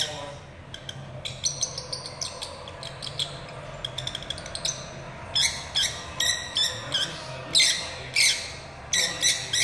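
Lovebird calling in quick runs of short, high-pitched chirps and squawks, sparse and softer at first and louder from about halfway through.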